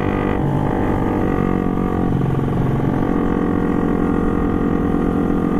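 Motorcycle engine running steadily as it is ridden, its note shifting a few times.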